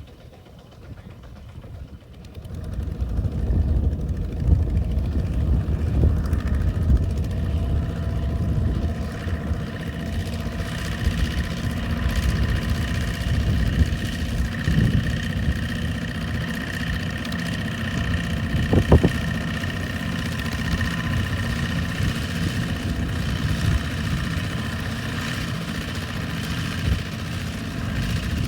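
Single-cylinder Kubota RT140 diesel engine of a two-wheel walking tractor, running steadily. It grows loud about three seconds in, and a steady high whine sits above it from about ten seconds on. There is one sharp click about nineteen seconds in.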